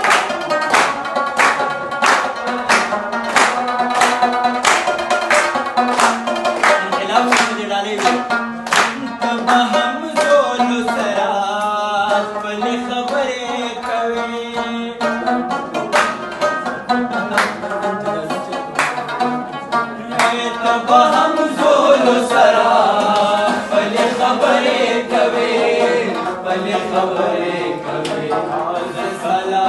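Live Pashto tapay: a rabab plucked with a man singing over it, and sharp hand claps keeping time at about two a second through the first third and again in the middle.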